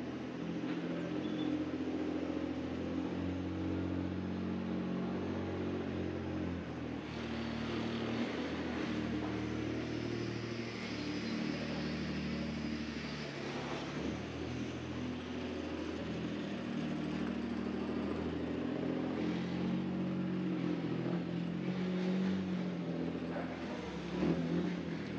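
A motor vehicle's engine running close by, its pitch shifting up and down in steps. A hissing noise joins about seven seconds in.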